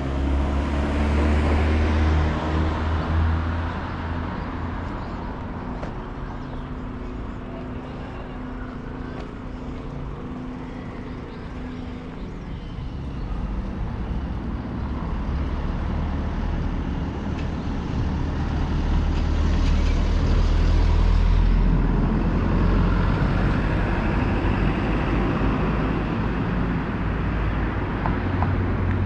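Street traffic: motor vehicles passing on the road. A low engine hum runs through the first dozen seconds, and another vehicle swells past about twenty seconds in.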